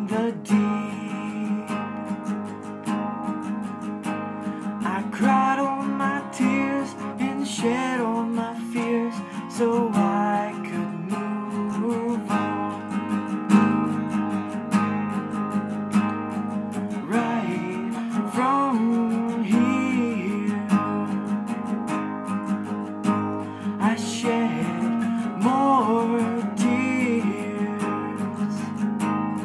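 Acoustic guitar strummed in a steady rhythm, with a man's voice joining in without words in a few places.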